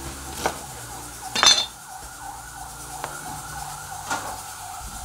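Kitchen knife cutting garlic on a plastic cutting board: a few separate knocks, the loudest with a bright clink about a second and a half in.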